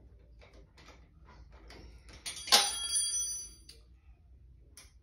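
Light metallic clicks of a hand tool tightening the scooter's handlebar clamp bolts, then one loud metallic clang about two and a half seconds in that rings for about a second: metal tool striking metal.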